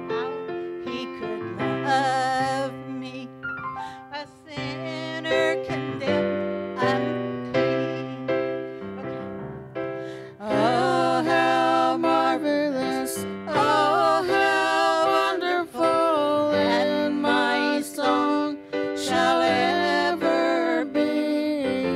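Keyboard playing a slow gospel hymn accompaniment. About ten seconds in, a singing voice joins it.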